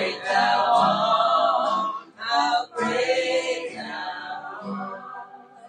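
Group of voices singing together with musical accompaniment and a low note recurring at an even beat.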